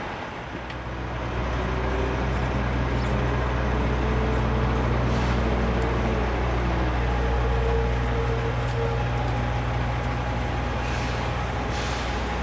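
Steady low drone of a nearby truck's diesel engine running, growing louder about a second in, with a faint whine that rises and falls near the middle.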